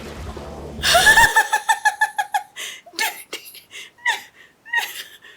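A woman laughing hard: a high-pitched run of quick, breathy bursts that starts about a second in and goes on, choppier, to the end.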